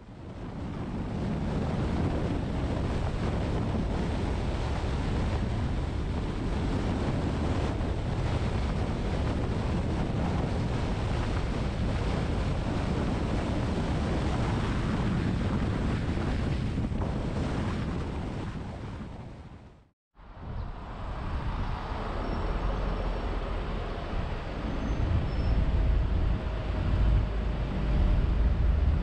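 Steady road and wind noise of a car being driven, fading out about twenty seconds in. After a brief silence, a car's low road rumble starts again and grows louder.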